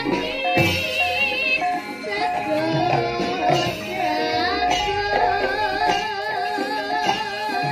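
A young Javanese sinden singing into a microphone with a wide vibrato, holding a long wavering note from about five seconds in. Gamelan accompaniment runs under her: held metallophone notes and kendang drum strokes.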